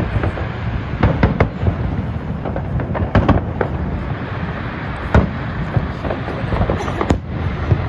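Fireworks display going off: a continuous crackle and rumble of shells with many sharp bangs, the loudest a few seconds in and about seven seconds in.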